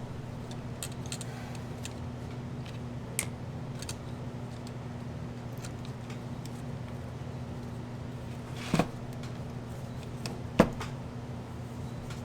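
Small clicks and taps of tools and parts being handled on a workbench over a steady low hum, with two louder sharp knocks near the end.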